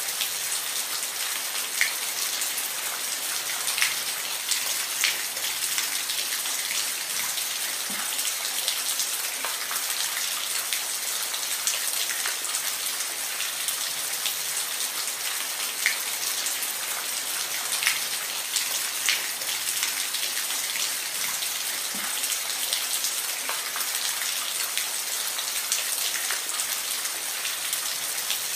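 Steady rain falling, a constant hiss with many individual drops ticking and plinking on a surface.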